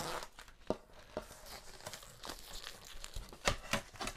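Plastic wrapping crinkling in short, irregular crackles as it is peeled off a bamboo cutting board.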